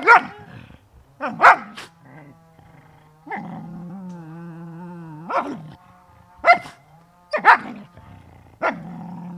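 Adult dog growling over a food bowl in long, steady growls, broken by several sharp snarling snaps and barks: food guarding aimed at a young German Shepherd puppy.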